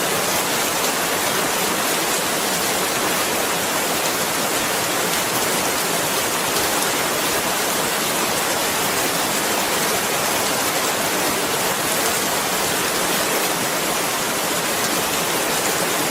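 Rain falling steadily, an even, unchanging hiss with no separate drops or thunder standing out.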